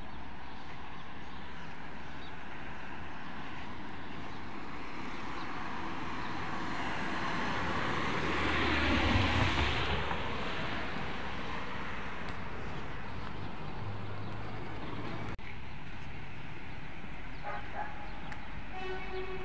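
A motor vehicle passing on the street, its tyre and engine noise swelling to a peak about nine seconds in and fading away, over a steady background of street noise.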